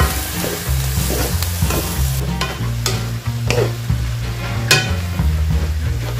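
Shredded cabbage and carrots sizzling in a stainless-steel wok as they are stirred and tossed with wooden spatulas. Repeated scrapes and knocks of the spatulas against the pan every half second to a second.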